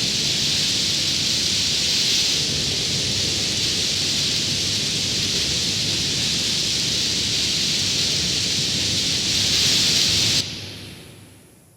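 Recorded rain and thunder of a slowed, reverb-soaked metal track's outro: a steady hiss of rain over a low rumble. It cuts off about ten seconds in and dies away in a reverb tail.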